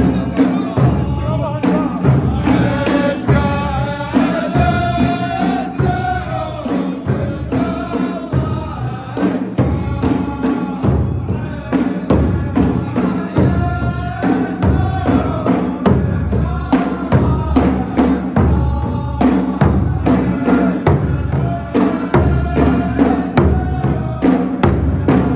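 Saudi folk troupe performance: voices singing a chanted line over rapid, regular drumming.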